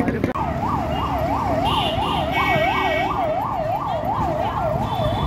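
Emergency vehicle siren sounding a fast up-and-down yelp, about two and a half sweeps a second, starting a moment in over steady street noise. A brief higher tone sounds over it in the middle.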